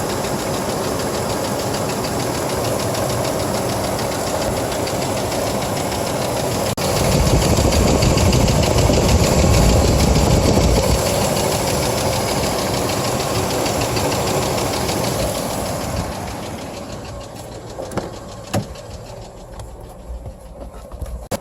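1997 GMC Jimmy's 4.3-litre V6 engine running with a noise the owner asks about as knocking, which began after driving through a deep puddle. About seven seconds in the engine gets louder and deeper for a few seconds, then gradually dies down. Near the end it is quieter, with a few separate knocks.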